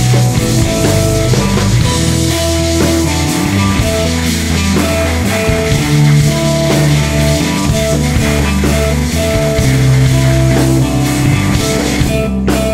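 Rock music with drums, bass and guitar, a steady beat throughout.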